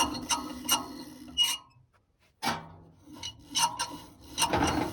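Rasping and scraping with a series of sharp clicks, from tools and metal parts being worked while the air conditioner's indoor fan assembly is taken apart. There is a short pause in the middle.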